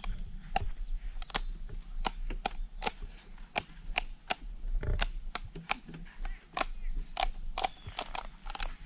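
A steady, high chorus of crickets, with many sharp clicks or snaps coming irregularly, about two or three a second.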